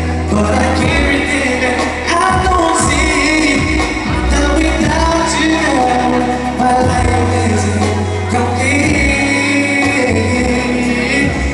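A man singing a pop ballad into a handheld microphone over an instrumental backing track with sustained bass notes.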